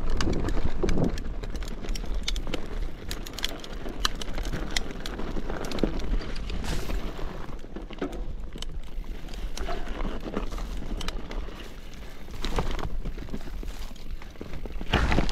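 Mountain bike riding over a rocky, stony trail: tyres rumbling and crunching over stones, with frequent sharp clicks and rattles from the bike, and wind on the microphone. It gets louder near the end.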